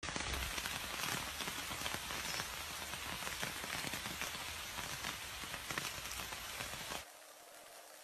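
Rain falling steadily, a dense patter of many fine drops on leaves, which drops suddenly to a much softer hiss about seven seconds in.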